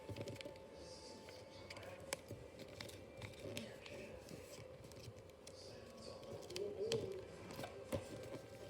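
A sheet of origami paper being folded and creased by hand: soft rustling with scattered small crisp clicks as the folds are pressed, over a steady faint hum.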